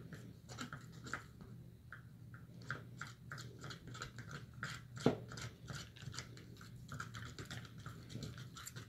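Sticky sand-filled slime being mixed, making faint, quick wet squelches and clicks several times a second, with one sharper click about five seconds in.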